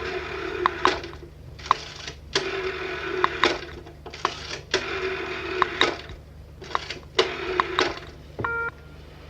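Old telephone mechanism clattering in five bursts of rattling with sharp clicks, like a rotary dial being wound and running back. A short single beep follows near the end over a steady low hum.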